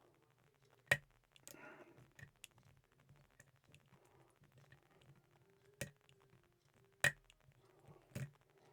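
Lock pick and tension wrench working the pins of an Ace 54541 brass padlock, with scattered sharp metallic clicks, four of them louder than the rest, and fainter ticks between.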